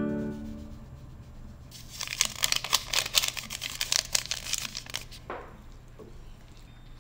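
A paper packet of powdered gelatin being shaken over a bowl: a dense crackly rustle of the paper for about three seconds, stopping shortly after the middle, followed by a single light knock.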